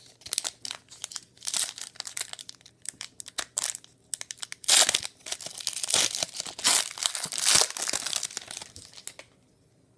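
Crinkling and tearing of a foil trading-card pack wrapper being opened and handled, in uneven crackles that stop about nine seconds in.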